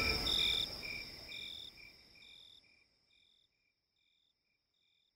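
Background music fading out over the first two to three seconds, leaving faint cricket chirps that repeat evenly, about one a second, over a thin steady high tone.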